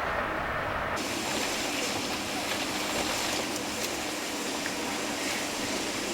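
Steady hiss-like background noise with no distinct events. About a second in, its upper range abruptly becomes brighter and fuller and then holds steady.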